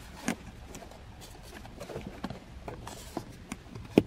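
Small plastic handling sounds as a compact LCD monitor on its stand is pressed and positioned on a plastic car dashboard: scattered light clicks and taps, with a sharper knock near the end.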